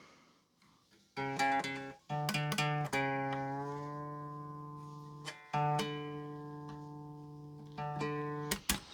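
SX Standard Series Stratocaster electric guitar being played: a few quick picked notes about a second in, then chords struck and left to ring and fade, twice, with a few short plucks near the end.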